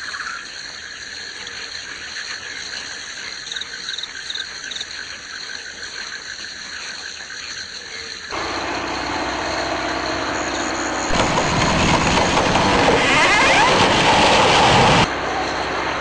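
Faint chirping and ticking, then, about halfway through, a loud machine engine sound starts suddenly. It grows louder a few seconds later and cuts off shortly before the end.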